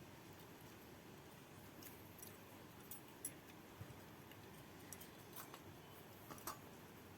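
Faint, scattered clicks and small smacks of a person eating crab curry and rice, over low room noise.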